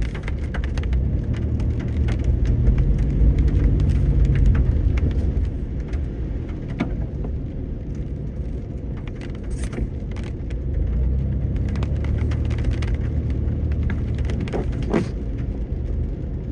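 Car driving on a wet road, heard from inside the cabin: a steady low engine and tyre rumble that swells twice, with scattered sharp ticks on top.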